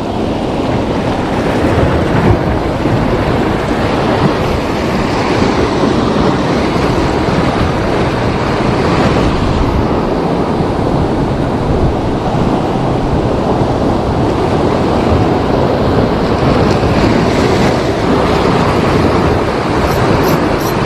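Large high-tide sea waves breaking and washing along the shoreline: a continuous, loud rush of surf.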